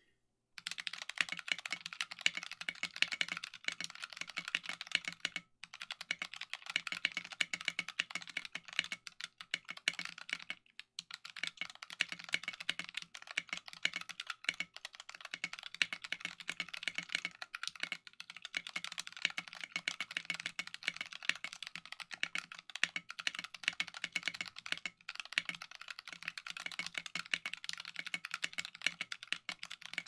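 Fast, continuous typing on a compact mechanical keyboard: a dense run of key clacks at about 90 words a minute. It starts about half a second in, with a few brief pauses.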